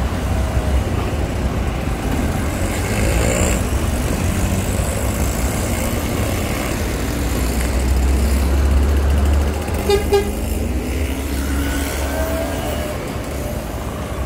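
Busy road traffic: car, bus and truck engines running past with a steady low rumble, heaviest shortly before a short horn toot about ten seconds in.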